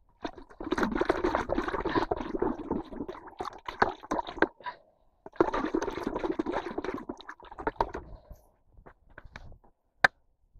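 A metal scoop on a wooden pole dredging wet bottom silt out of a hole in the ice, with water and mud sloshing and squelching, in two long scoops. Scattered clicks follow, and a single sharp knock near the end.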